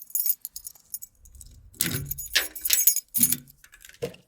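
Small metal pieces clinking and jingling in irregular bursts, loudest from about two to three and a half seconds in.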